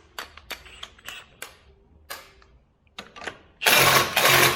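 A few sharp metallic clicks and taps of a socket tool on a bolt. About three and a half seconds in, a handheld power tool starts running loudly, with a brief dip, as it works on the 17 mm engine-mount bolt.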